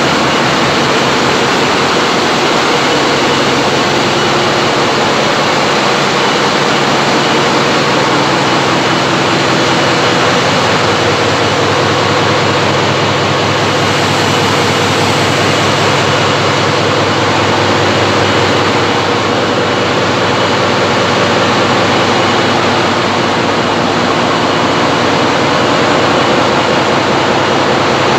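Large stationary diesel generator engines running in an engine hall: a loud, steady machinery din with a low hum running through it.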